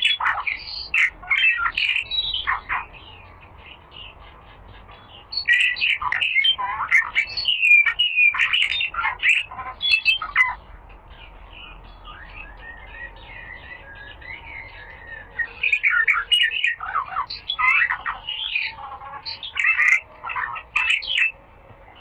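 A small songbird singing in vigorous bouts of rapid, chattering high notes: three loud bursts of song with softer warbling between the second and third.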